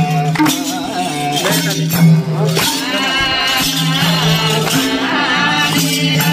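A group singing a Nepali Bhailo folk song in long, wavering held notes, with madal hand-drum strokes beneath.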